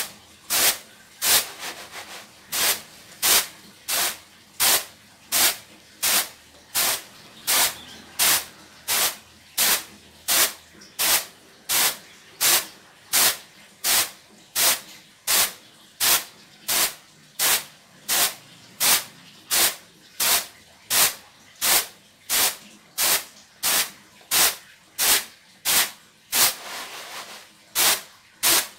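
Raw rice being winnowed on a woven bamboo winnowing tray (nyiru): the grains are tossed and caught in a steady rhythm, each toss a dry swish, about three every two seconds. The tossing shakes out fine husk, unhulled grains and stones.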